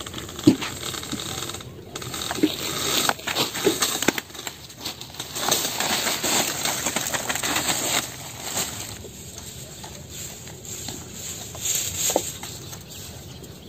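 Rustling and scattered light clicks and taps as a cut bunch of red dates is lowered down the palm and handled on a plastic tarp. The sound is strongest in the middle stretch and then thins to occasional ticks.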